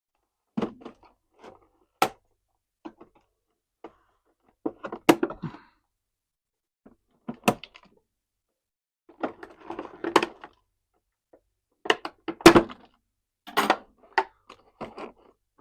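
A plastic toy being cut and pulled free of its cardboard-and-plastic packaging: scattered knocks and rustling of the box and plastic, with several sharp snaps as the plastic ties holding it are cut.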